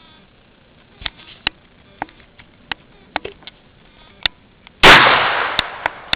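A single shot from a .22 revolver about three-quarters of the way in, loud and sharp, with a tail that dies away over a second or so. Several light clicks come before it.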